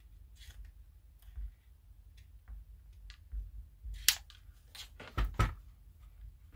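Scattered small clicks and taps from handling model parts and tools, with the loudest sharp click about four seconds in and two more in quick succession about a second later.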